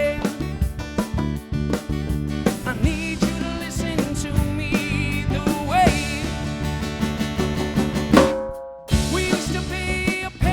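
Band playing a song live without vocals for these seconds, drum kit driving the rhythm under bass and guitar; the music breaks off briefly about eight seconds in, then the band comes back in.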